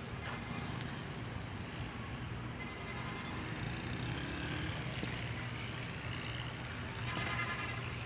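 Small motorcycle engine running at a distance, a steady low hum.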